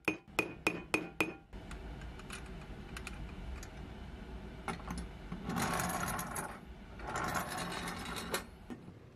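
Tool tapping the axle end of a pressed-steel toy truck, about five ringing metal strikes at roughly three a second, peening the axle to hold a hard rubber wheel on. Then the truck's hard rubber wheels roll over the tabletop with a rumbling rattle that grows louder twice near the end.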